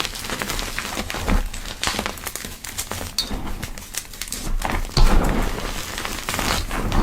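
Soft powder pressed and crushed by hand, giving a steady run of small, soft crackles, with a heavier, louder crackling press about five seconds in.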